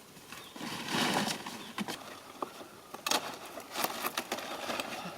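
Rustling and crackling of leaves being handled, with a few sharp clicks about three to four seconds in.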